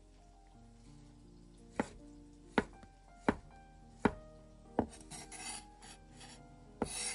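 A knife slicing brown mushrooms on a wooden cutting board: five crisp knocks of the blade on the board, about one every three quarters of a second, then rasping scrapes against the board about two-thirds of the way in and again near the end. Soft background music underneath.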